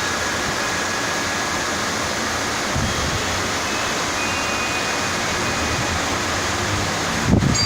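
Heavy rain pouring steadily in a storm, with faint wind-chime tinkles. A brief low rumble comes about three seconds in and a stronger one near the end.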